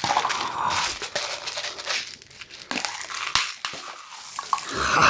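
Plastic candy wrappers crinkling and crackling as packets are handled and opened, with a few light clicks of small candies.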